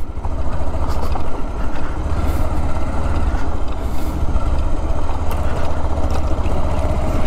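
Motorcycle ridden slowly over a rough gravel dirt track, its engine running at low speed with a steady low rumble. A steady higher note joins in about five seconds in.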